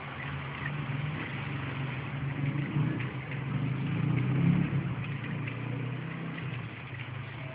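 A motor vehicle passing: a low engine hum grows louder to a peak about four and a half seconds in, then fades.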